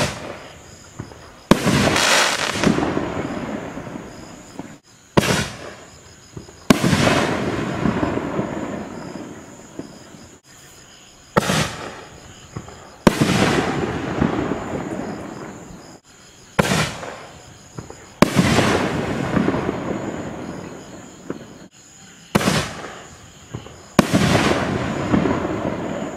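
Consumer canister shells from a Shogun 44 Magnum kit fired one after another from a mortar tube. Each shot is a sharp launch report, followed about a second and a half later by the shell's louder burst, which dies away over a few seconds. Five shots come about five to six seconds apart.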